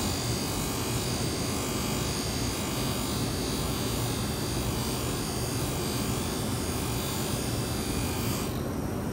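Polishing mop on a buffing machine spinning steadily while a bare-steel tube is pressed against it: a continuous motor hum and whirr with the hiss of the part against the compound-loaded mop. This is the first polish, taking out the scratches left by linishing.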